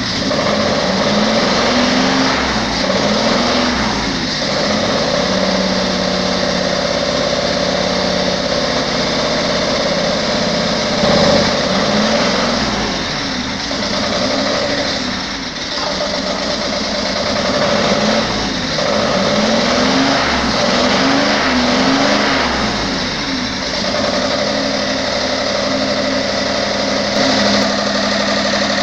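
1957 Commer TS3 three-cylinder two-stroke opposed-piston diesel running, its pitch rising and falling in several short revs.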